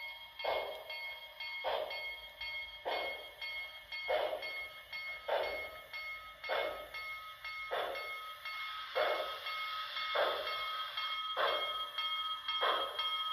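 Onboard sound system of a Broadway Limited Imports HO scale New York Central Commodore Vanderbilt 4-6-4 Hudson model locomotive, playing steam exhaust chuffs as the model runs slowly. The chuffs are slow and even, with a heavier one about every second and lighter ones between, over a steady high whine.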